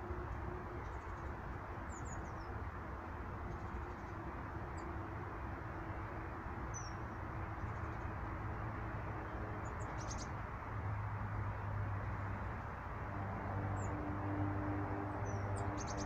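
Small birds giving short, high chirps now and then, several sliding down in pitch, over a steady background rush and a low hum that grows louder in the last few seconds.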